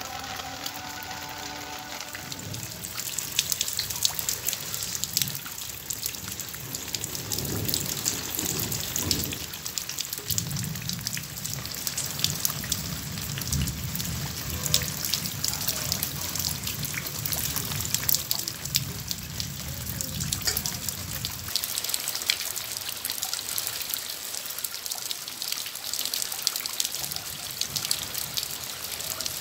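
Heavy rain falling on broad leaves and splashing into water pooled in a planter: a dense, continuous stream of small drop impacts. A low rumble runs under it for about ten seconds in the middle.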